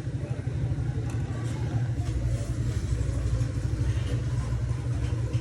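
A steady low motor hum with a rumble beneath it, unchanged throughout.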